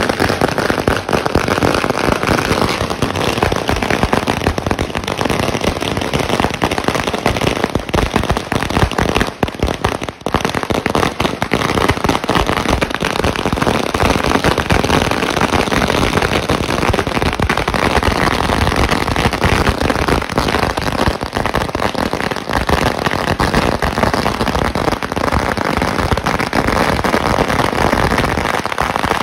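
A 5000-wala firecracker string (thousands of small crackers linked in one long chain) going off in a very loud, continuous rapid crackle of bangs, with a brief lull about ten seconds in.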